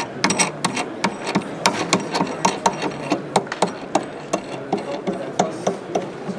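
Quick, irregular clicking, about four clicks a second, from a knob being twisted by hand on the telescoping metal stand of a MOVEO foldable electric scooter.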